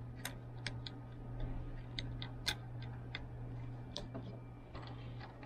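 Small plastic wire-harness connectors and their wires in a cassette deck being handled and pushed onto circuit-board pin headers: a few light, irregular clicks over a steady low hum.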